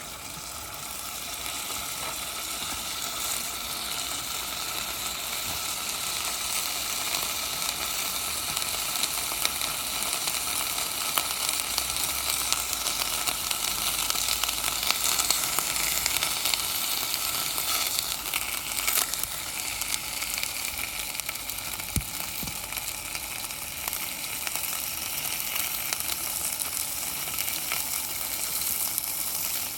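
Food sizzling as it fries, a dense steady hiss dotted with small spitting pops, swelling over the first couple of seconds and then holding.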